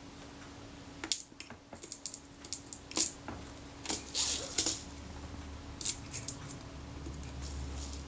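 Tiny metal screws clicking and rattling in a plastic compartment box as they are picked through with tweezers: scattered light clicks with a few short rustles, over a faint steady hum.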